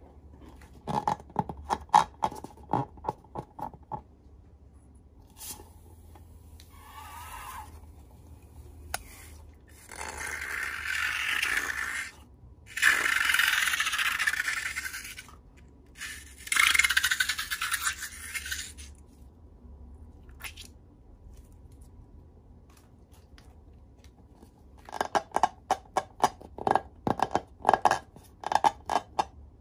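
A plastic spoon scraping and stirring liquid slime around a plate in three long strokes. Bursts of quick clicks come shortly before and near the end.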